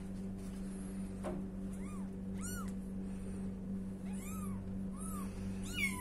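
A ten-day-old kitten mewing: about five short, high cries from about two seconds in, the last near the end the loudest and sliding down in pitch. A steady low hum runs underneath.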